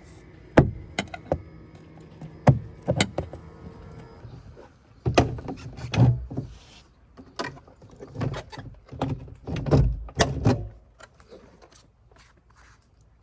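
Irregular clicks, taps and knocks of hard plastic and metal parts being handled and fitted on a pickup truck's door during a side-mirror replacement, busiest in the middle and quieter near the end.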